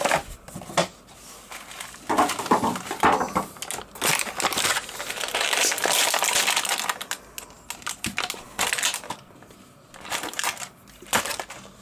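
Stiff plastic blister packaging crinkling and crackling as an action figure and its parts are pulled out of the tray. The crackles come irregularly, densest for a few seconds in the middle.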